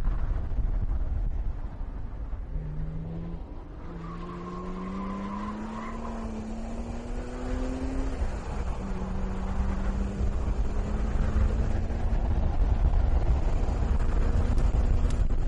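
BMW M1's straight-six engine running as the car is driven at speed, its note climbing for a few seconds about a third of the way in, then holding steady. Heavy low wind and road rumble runs underneath and grows louder near the end.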